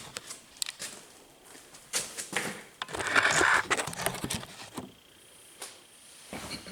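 Scattered clicks, knocks and handling noises, with a louder rustling scrape about three seconds in.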